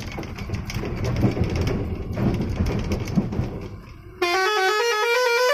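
Heavy truck engine running under load with cab rattles; about four seconds in, a loud multi-note musical horn starts, stepping up and down through a short tune.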